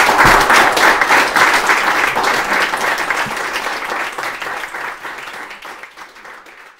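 Audience applauding, loud at first and gradually dying away toward the end.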